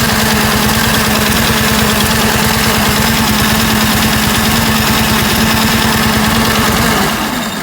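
1947 motorcycle engine, hot-wired and without a throttle cable, running steadily; it is shut off near the end, its note dropping in pitch as it winds down.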